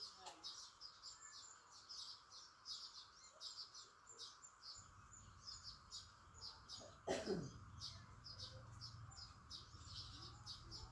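Faint, rapid high chirping from small birds, several short chirps a second. About seven seconds in comes a single sharp click followed by a quick sound sliding down in pitch.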